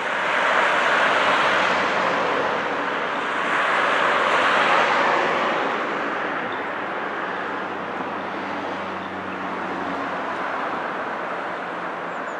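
Road traffic noise: cars passing, their tyre noise swelling twice in the first five seconds and then settling to a steadier rush.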